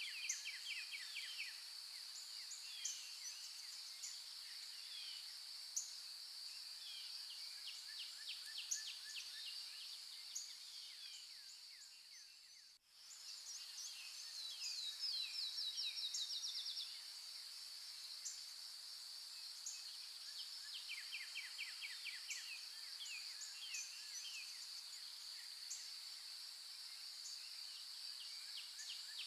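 Nature soundscape: a steady high-pitched insect drone with many birds chirping and trilling over it. About halfway through, everything fades out briefly and fades back in.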